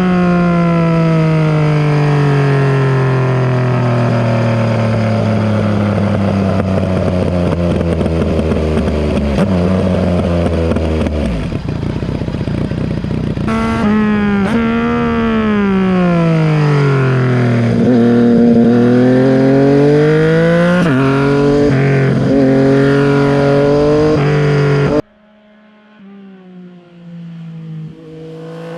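Yamaha MT-09 SP's inline three-cylinder engine running through a full SC-Project exhaust with its dB killer fitted and the catalyst removed, under way: a long falling engine note as the revs drop, then several rises and falls as the throttle is opened and closed. About 25 seconds in the sound cuts abruptly to a faint engine note that rises and grows louder near the end.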